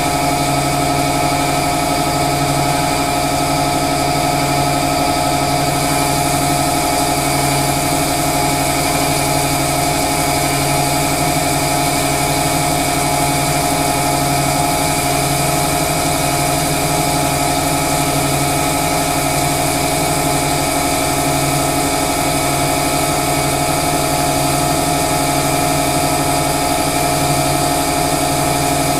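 Winona Van Norman CG250 crankshaft grinder running steadily at an even level, a constant machine hum made of several steady tones with a slight regular pulsing low down.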